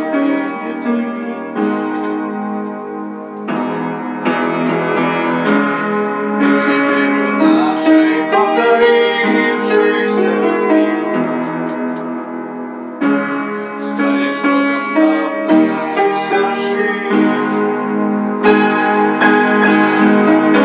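Instrumental passage of a pop song played on a piano-like keyboard, with sustained chords changing every few seconds and a melody over them, and no singing.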